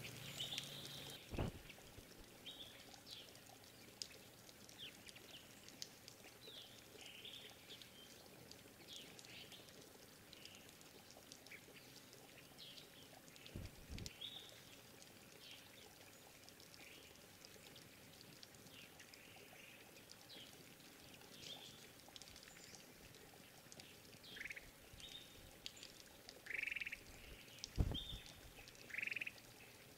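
Faint short chirps and call notes from several small forest birds, scattered throughout, with a few louder, longer notes near the end. Three dull low thumps are heard, one near the start, one in the middle and one near the end.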